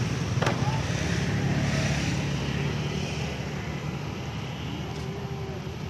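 A steady low engine rumble that fades slightly over the last few seconds.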